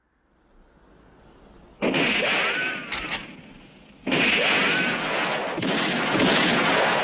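Spaghetti-western film gunfight sound effects: loud gunshots with long echoing tails and ricochet whines that rise and fall. One shot comes about two seconds in, two sharp cracks follow about a second later, and another shot with a ricochet lands about four seconds in. Faint, evenly spaced ticking comes before the first shot.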